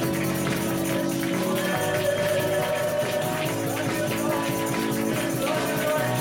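Live praise-and-worship band music with a tambourine shaking along over held chords.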